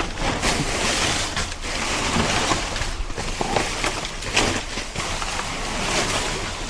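Trash rustling and knocking about as a dumpster is rummaged through: a continuous rustle with irregular small knocks and scrapes.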